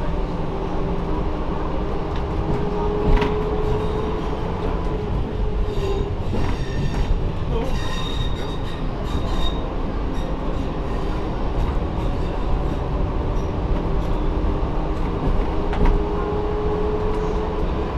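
Derby Lightweight diesel railcar running along the line, heard from the cab: a steady engine and wheel rumble whose note climbs slightly near the end. About eight seconds in, a high wheel squeal rings for a second or two as it runs through a curve, and two sharp knocks come at about three seconds and near the end.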